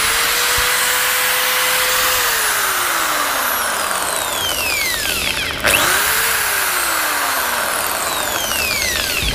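Hit-Min HMDV 13A 13 mm corded drill running with no load. It spins up, runs for about two seconds, then winds down as the trigger eases off. It is triggered again about five and a half seconds in and winds down once more. It makes quite a lot of noise along with the motor whine, which the owner takes for extra noise in the gears.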